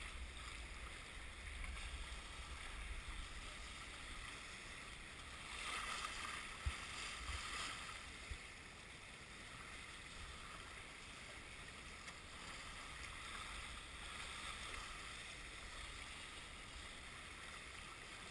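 Water rushing along a racing sailboat's hull under way, an even hiss with wind rumbling on the microphone. Two brief knocks come near the middle.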